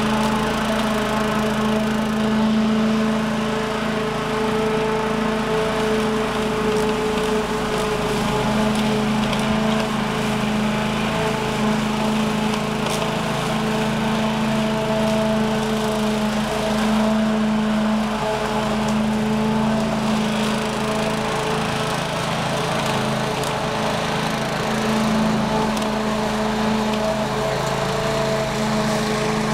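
A lawn mower motor running steadily at an even pitch.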